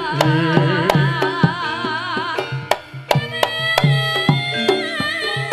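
Live Javanese jaranan music: hand-drum strokes beating a rhythm under a melody line with a strong wavering vibrato.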